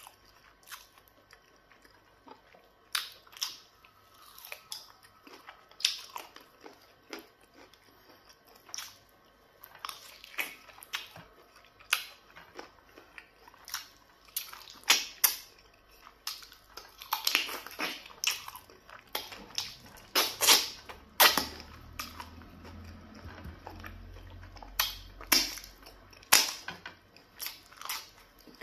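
A person chewing and biting a mouthful of pounded yam fufu with black soup, eaten by hand: irregular sharp mouth clicks, sparse at first and coming thicker and louder in the second half.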